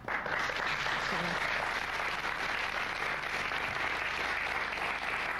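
Studio audience applauding, breaking out all at once and going on steadily.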